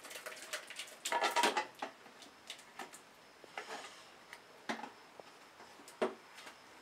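A cooking pot being scraped and knocked with a utensil as cooked butternut squash soup is scooped and tipped into a plastic blender jug: scattered scrapes and clinks, loudest about a second in, with a couple of short knocks later.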